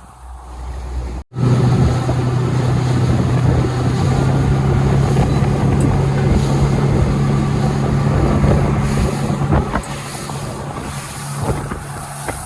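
Boat's outboard motor running steadily at speed, a strong even hum under wind on the microphone and rushing noise; the engine hum falls away about ten seconds in while the rushing noise carries on.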